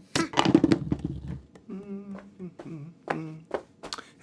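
Cartoon sound effects for an animated cat: several sharp clicks and a noisy scuffle in the first second and a half, then a few short, held, wavering vocal sounds in the manner of a cat's mews and trills.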